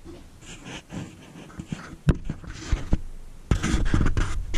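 Soft knocks and rustling, with a sharper knock about two seconds in and another about a second later. A louder, continuous rustling starts about a second before the end.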